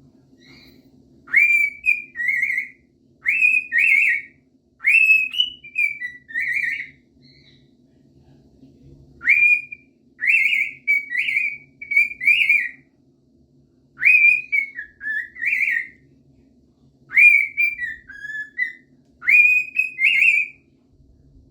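Cockatiel whistling a song in about eight short phrases, each made of clear high notes that swoop up and then warble, with brief pauses between phrases.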